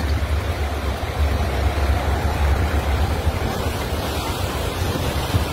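Wind buffeting the phone's microphone as a heavy, uneven low rumble, over a steady rushing noise of trucks and cars wading through floodwater.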